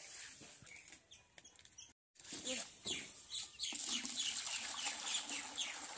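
A chicken clucking faintly while held in someone's hands. After a cut about two seconds in, hot water is poured from a pot into a steel bucket, a steady rushing splash that is the loudest part.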